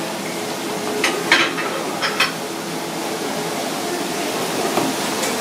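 Steady hum of kitchen ventilation, with a few short light knocks of a knife on a plastic cutting board while a grouper is being filleted, in pairs about one and two seconds in.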